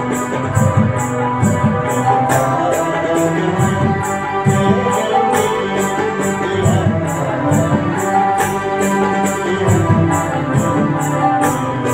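Electronic arranger keyboard playing a melody over its built-in rhythm accompaniment, with low drum beats and an evenly repeating high percussion tick about twice a second.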